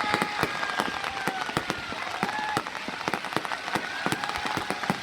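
Fireworks crackling, a rapid dense run of sharp pops and snaps. Short high-pitched held notes sound over it now and then.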